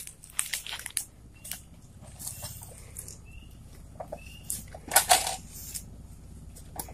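Scattered knocks, creaks and rustles from a motorbike loaded with oil palm fruit bunches being walked along a slippery path with its engine off, the loudest knocks about five seconds in. A few faint short chirps are heard about one and a half, three and four seconds in.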